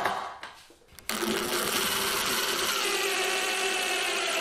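Cordless drill driving a screw through a pine apron strip into a birch butcher-block slab: a steady motor whine that starts about a second in, its pitch falling slightly partway through.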